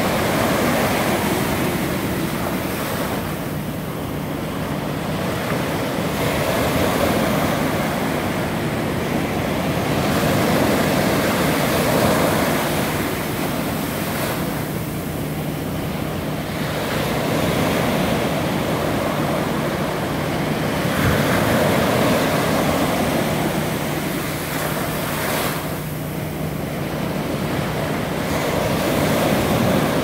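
Ocean surf breaking and washing up the sand around wooden pier pilings, rising and easing in waves every few seconds.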